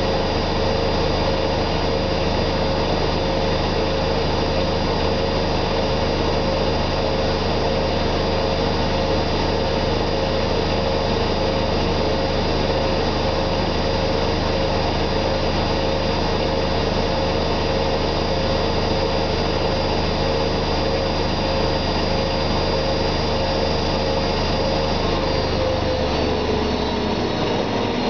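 Zanussi ZWF 1621 W washing machine on its 1600 rpm spin: the motor and drum give a steady high-speed whine and rumble. Near the end the whine starts to drop in pitch as the drum begins to slow down.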